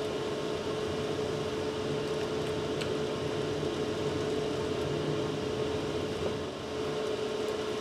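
Steady background hum of running machinery, with one constant mid-pitched tone under it and a faint tick about three seconds in.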